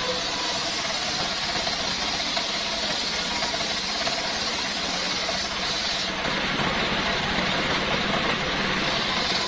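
Stationary single-cylinder diesel engine running steadily, belt-driving a homemade circular saw. The blade's high hiss as it cuts coconut-trunk timber drops away about six seconds in.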